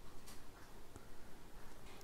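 Faint room tone: a low, even hiss with a few soft ticks, one about a third of a second in and one near the end.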